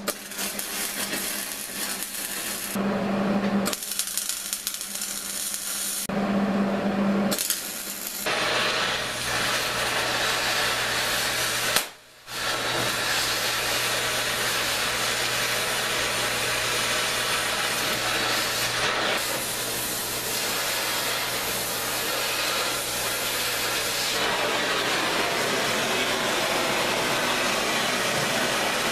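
MIG welding arc crackling and hissing on mild steel: a few short welds in the first eight seconds with a low hum in the pauses, then, after a break about 12 seconds in, one long unbroken weld run.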